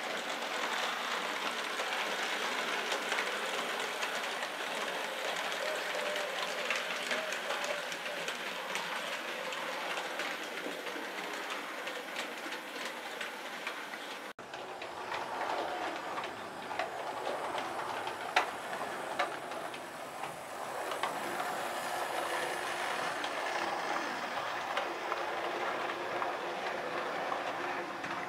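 Model railway train running along the track: a steady rolling and motor noise with scattered light clicks. It cuts abruptly about halfway through to a second, similar running sound.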